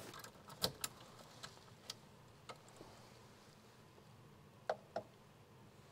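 Quiet, scattered light clicks and taps, about eight at irregular spacing. The two loudest come close together about four and a half seconds in.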